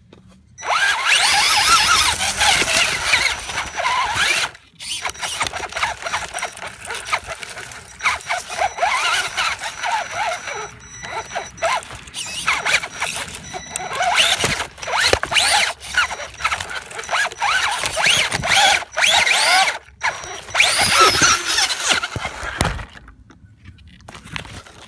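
Electric motor and gears of a radio-controlled off-road truck whining in a high squeal that rises and falls in pitch as it is driven. The whine cuts out briefly about four and a half seconds in and again around twenty seconds, and stops near the end.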